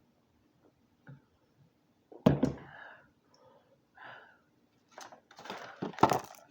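A woman breathing out hard through her mouth several times, with one louder, low voiced burst about two seconds in and a sharper breath near the end, while her mouth burns from spicy food.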